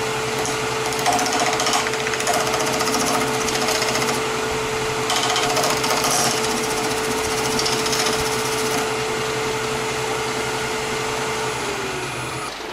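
Wood lathe running while a hand-held turning tool scrapes the spinning hackberry-and-epoxy-resin workpiece, trimming off overflowed epoxy. A steady whine and hum run under the scratchy cutting noise, and the whine falls in pitch near the end.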